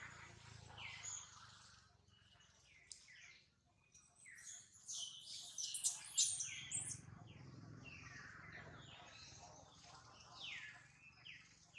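Birds chirping in the trees: a run of short, high calls, many of them falling in pitch, busiest around the middle.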